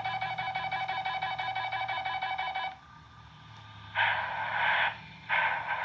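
Emergency Alert System–style attention tone: a steady, shrill electronic two-tone alarm with a fast flutter that cuts off suddenly about a third of the way in. After a short pause come two harsh electronic buzzing bursts of about a second each.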